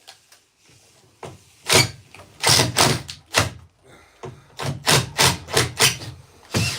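Hammer blows on wood: a dozen or so sharp, irregular knocks, coming faster in the second half.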